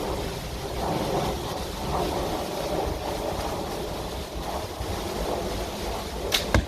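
Wind buffeting the microphone in a steady rumble, with two sharp clicks close together near the end.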